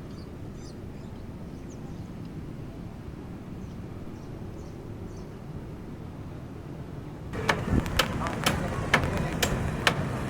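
A steady low rumble of outdoor background noise. About seven seconds in, it gives way suddenly to louder sharp knocks, roughly two a second, with voices underneath.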